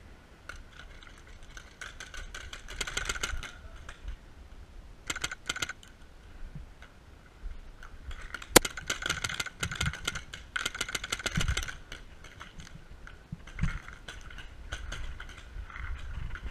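Bursts of rapid clicking and rattling from paintball gear, coming in several clusters, with one sharp crack about eight and a half seconds in.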